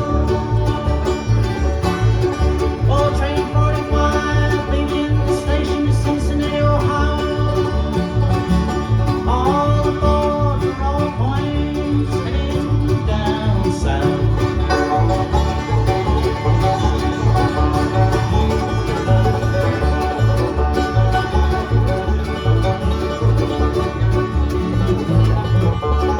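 Bluegrass band playing an instrumental passage: banjo and guitar picking over a steady, even bass beat, with a bowed fiddle line that slides between notes.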